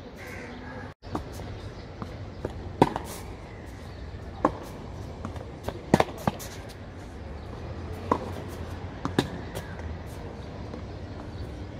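Tennis rally on an outdoor hard court: the sharp pops of racquets striking the ball and the ball bouncing come every second or two. The loudest hit is about six seconds in.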